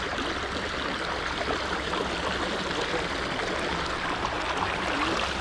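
A creek running steadily over rocks, a constant rushing of water.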